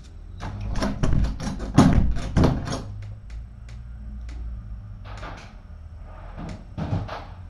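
A quick run of clicks and knocks with a couple of heavier thuds about two seconds in, then a few scattered clicks and a smaller clatter near the end.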